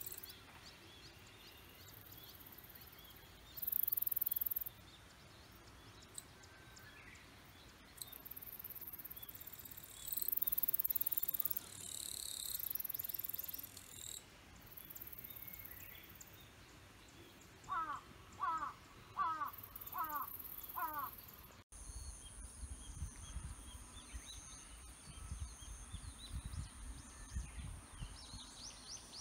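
Outdoor ambience with a crow cawing five times in quick succession about two-thirds of the way through, over a high-pitched buzzing that comes and goes. After a sudden change, a steady high trill runs over low rumbling wind on the microphone, with a few quick high chirps near the end.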